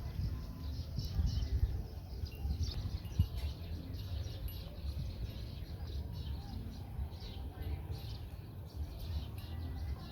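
Outdoor ambience: small birds chirping in short, scattered calls over a steady low rumble, with one sharp click about three seconds in.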